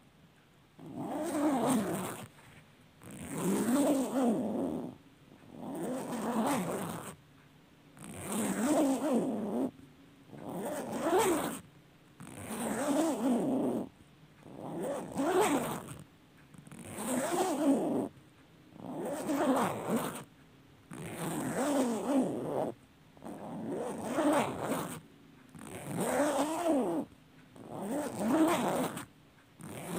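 A long clothing zipper being pulled again and again, one rasping stroke of about a second and a half every two seconds or so, over a dozen pulls in all.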